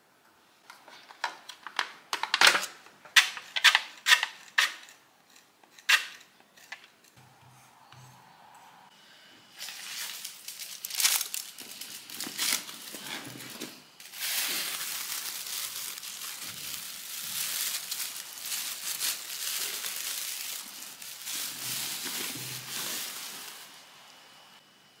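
Handling noises: a run of sharp clicks and knocks for the first few seconds, then crinkling that turns into a steady rushing noise for about ten seconds.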